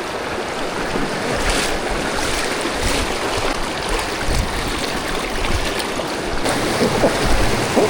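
Rushing whitewater of a river rapid: a steady, even rush of moving water.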